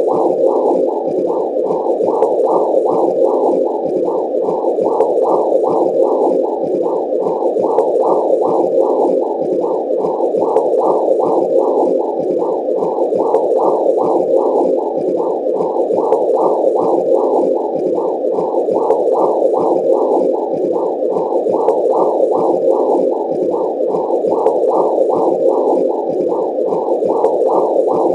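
Womb sound: a low whooshing noise that swells in an even rhythm, about two pulses a second.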